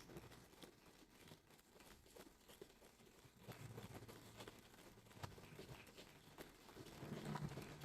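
Near silence: quiet room tone with faint scattered clicks and a faint low murmur that comes and goes.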